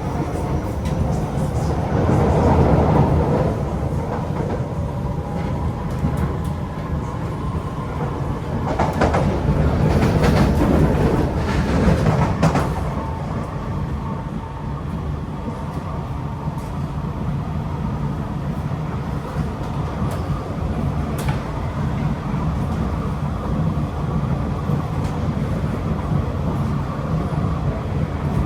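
Kawasaki & CRRC Qingdao Sifang C151B metro train running, heard from inside the carriage: a steady rumble of wheels on the track with faint steady motor tones, swelling louder about two seconds in and again from about nine to twelve seconds.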